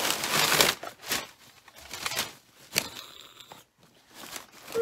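Crinkly packing material being crumpled and rustled by hand while digging through a cardboard shipping box. The rustle is loudest in the first second, then comes and goes in short crackles.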